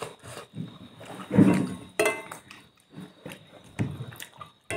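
Close-up mouth sounds of someone eating momos: wet chewing and smacking in short, uneven bursts, with a brief hum about two seconds in.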